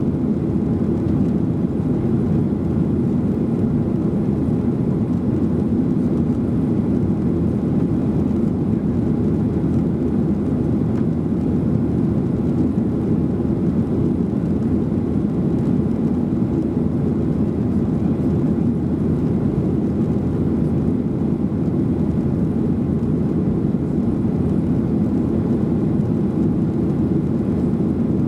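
Steady cabin noise inside a Boeing 737-800 in flight shortly after takeoff: the constant low rumble of its CFM56-7B engines and airflow over the fuselage, with no change in level.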